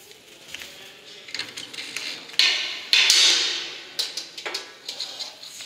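A black spray hose being handled and fed through the hose guide of a stainless-steel hose-reel frame. Scattered clicks and knocks, with two loud scraping rushes a little past two and three seconds in, the second fading away.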